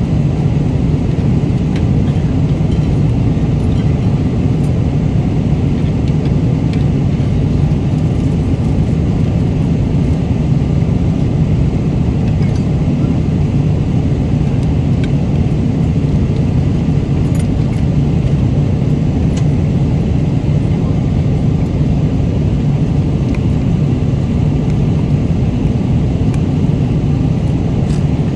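Steady low rumble of an airliner cabin in flight, with a few faint small clicks now and then.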